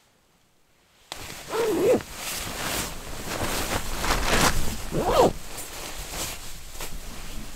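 Near silence for about a second, then the crinkle and rustle of an MSR AC bivy bag's nylon as a person settles into it, with a zipper pulled twice.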